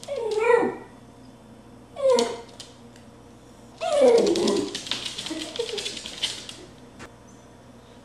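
Dachshund barking and yipping excitedly, three calls about two seconds apart, each dropping in pitch. The third, about four seconds in, is the loudest and is followed by about two seconds of rapid scratchy clatter.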